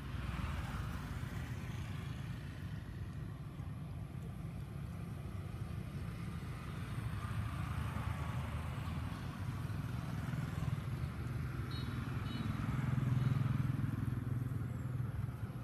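Low, steady rumble of a motor vehicle engine, swelling briefly about two-thirds of the way through.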